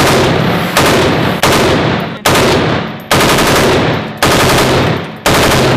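A machine gun firing on full automatic in about seven short bursts, one right after another, each burst lasting under a second.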